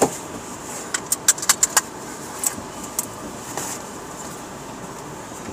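Steady noise inside a car waiting at a light. About a second in comes a quick, irregular run of half a dozen sharp clicks and taps, and a few more scattered ones follow.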